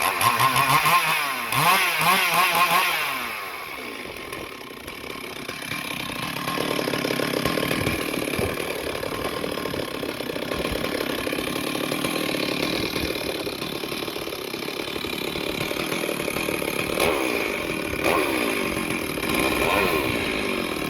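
Stihl MS 382 two-stroke chainsaw revving up and down in quick bursts for the first few seconds, then running steadily at speed, with a few more revs near the end.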